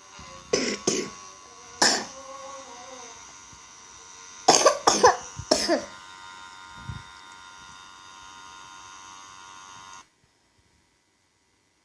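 A child coughing in two short runs, about six coughs in all, over the steady high hum of a portable nebulizer. The sound cuts off suddenly near the end.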